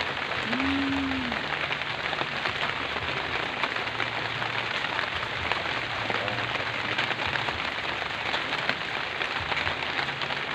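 Steady rain falling, an even hiss of many drops. About half a second in there is a brief pitched call over it.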